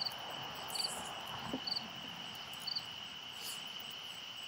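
Night insects: crickets keep up a steady high trill, and another cricket gives short chirps about once a second.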